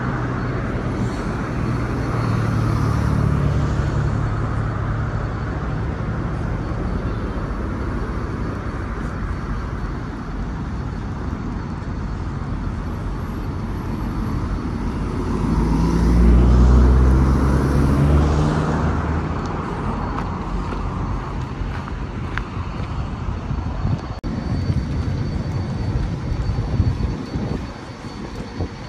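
Road traffic beside a sidewalk: cars driving past, with one louder vehicle going by a little past halfway, its engine hum swelling and then fading.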